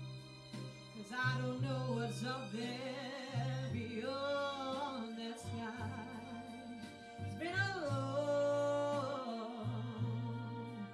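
A young woman singing solo into a handheld microphone, in sung phrases with long held notes and vibrato, over a steady low backing.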